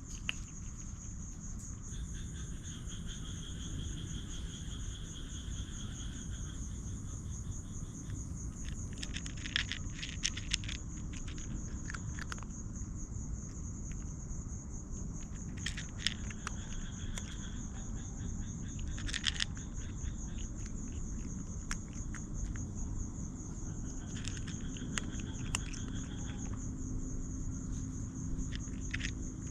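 Insects trilling steadily: one high, fast-pulsing trill throughout, and a second lower trill that comes and goes, over a steady low rumble. Scattered sharp clicks and rustles, a cluster of them around ten seconds in, another near the middle and another about two-thirds through.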